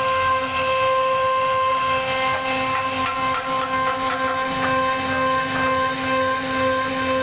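CNC router spindle running with a steady whine while its bit cuts a wooden door panel, with a rough cutting noise underneath.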